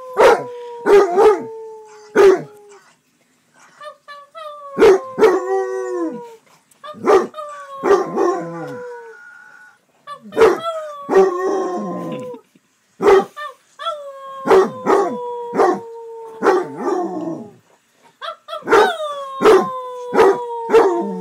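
Basset hound baying: long howls that slowly slide down in pitch, broken up by short sharp barks, in about six bouts with short pauses between them.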